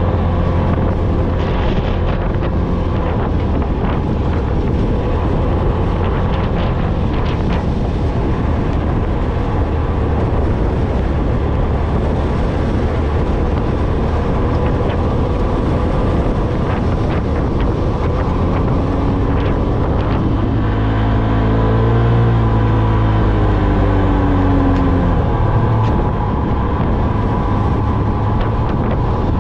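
Off-road vehicle engine running while driving over sand dunes, with wind buffeting the microphone. About two-thirds of the way through, the engine pitch swings up and back down.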